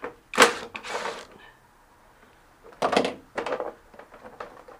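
A few short clattering, scraping noises of tools and parts being handled as a spin bike is taken apart: a pair about half a second in, the first the loudest, and another pair near three seconds, with small clicks between.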